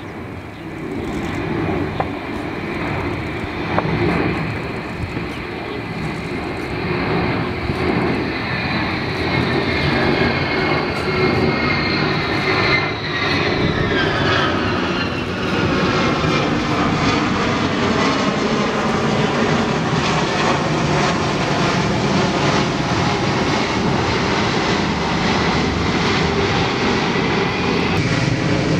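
Xian Y-20 transport jet's four turbofan engines in a low fly-by: a steady rumble with a high whine that slides down in pitch about halfway through, growing louder toward the end as the aircraft comes overhead.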